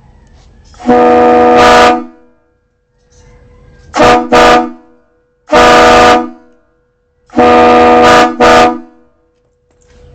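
A set of homemade PVC train horns with aluminum diaphragms, blown by air, sounding a chord of several notes together in loud blasts. The blasts come as about a one-second blast, a quick double toot, another one-second blast, then a longer blast that ends in a short extra toot. The owner says the horns are not yet tuned exactly where they need to be.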